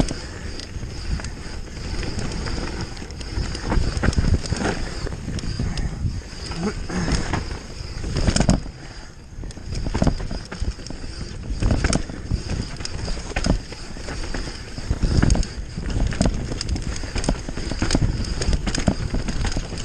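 Mountain bike riding fast down a dry dirt trail: a constant rush of tyres on dirt with the bike rattling and knocking irregularly over bumps and roots.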